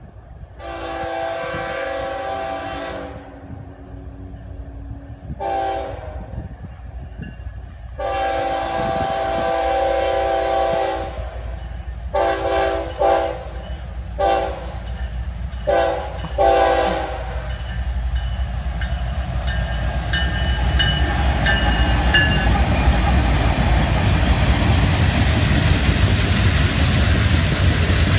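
Freight train diesel locomotives sounding their horn for a grade crossing: a long blast, a short one, another long one, then five quick short toots. The locomotives then pass, and loaded freight cars roll by with rising rumble and wheel clatter on the rails.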